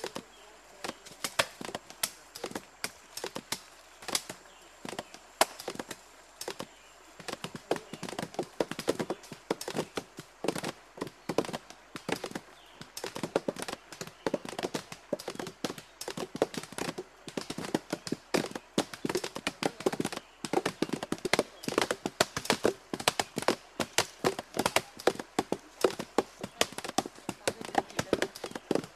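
Barbasco vine roots being struck over and over: many quick, sharp wooden knocks, several a second and often overlapping, growing denser after the first several seconds as the roots are worked to get at the fish poison.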